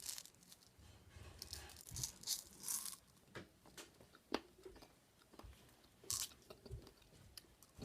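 Small plastic candy wrappers being torn open and crinkled, in short scattered rustles and crackles, with faint chewing of the hard candy.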